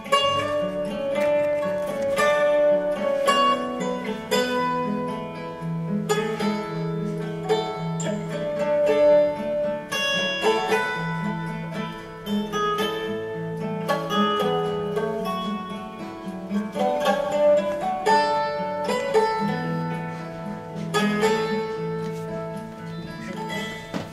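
Instrumental background music led by a plucked guitar playing a steady melody over sustained chords.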